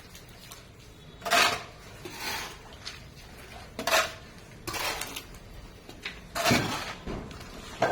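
Metal hand tools of masonry work scraping and clinking in about five short, separate strokes.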